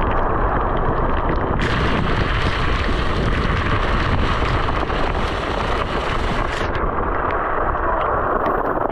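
Wind buffeting the microphone of a camera on a moving electric scooter: a loud, steady rushing noise. A brighter hiss joins about a second and a half in and cuts off about two seconds before the end.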